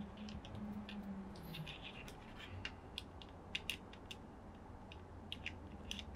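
Scattered light clicks and taps of hard plastic parts handled by hand: a painted Tamiya Aero Thunder Shot Mini 4WD body and a separate painted piece being fitted onto it. The sharpest few clicks come a little past the middle.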